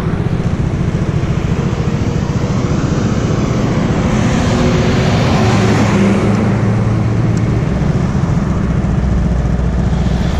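Road traffic noise on a highway, a steady low rumble with a passing car swelling and fading around the middle.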